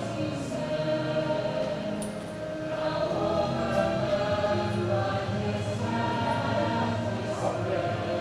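A choir singing long, held notes.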